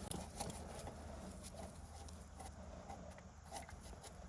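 Faint, scattered small clicks and taps of hand tools working a brake line fitting, over a low steady hum.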